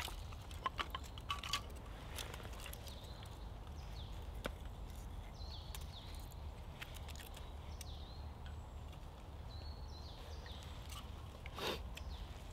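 A few sharp cracks and clicks as dry kindling is split and handled with a knife on a stump, mostly in the first two seconds and once more near the end. Between them there is quiet woodland ambience with small birds chirping now and then over a low steady rumble.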